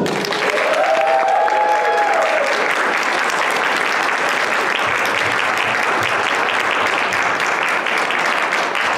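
Audience applauding steadily, with one person's drawn-out whoop about a second in.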